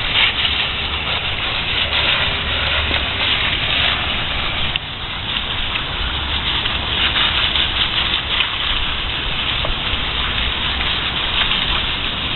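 Garden hose pistol nozzle spraying a steady jet of water onto a dog and wet concrete, a continuous hiss of spray that dips briefly about five seconds in.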